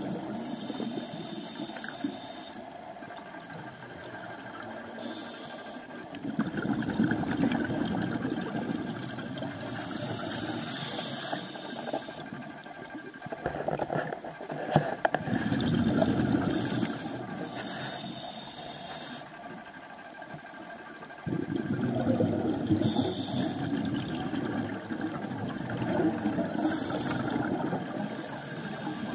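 Scuba diver breathing through a regulator underwater: a short hiss of inhaled air through the demand valve, then a longer, louder bubbling exhale, repeating every five seconds or so.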